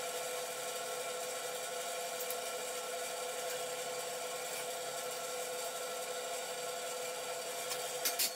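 A steady machine hum with several fixed tones runs throughout, and a few sharp metal clanks come near the end as the steel frame and clamps are handled.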